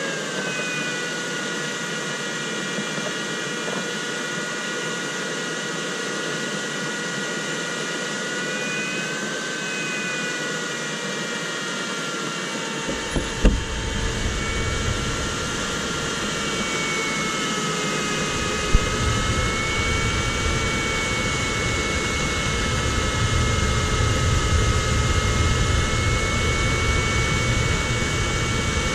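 Steady rush of airflow around an ultralight sailplane's cockpit in gliding flight, with the electronic variometer's tones drifting slowly up and down in pitch. A sharp knock about halfway through and a smaller one a few seconds later, with more low rumble from then on.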